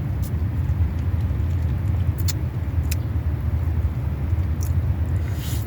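A steady low rumble with a few short, faint clicks and a brief rustle near the end.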